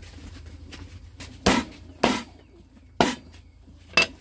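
Four sharp, hard knocks, each with a brief ring-off. They come at uneven intervals of about half a second to a second, and the last is a little quieter. A faint low hum sits underneath.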